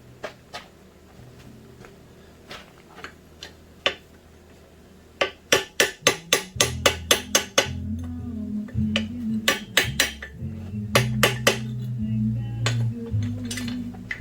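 Blacksmith's hammer striking hot steel on an anvil: scattered single blows, then a quick run of about a dozen strikes about five seconds in, then more intermittent blows. Music with a low bass line plays underneath.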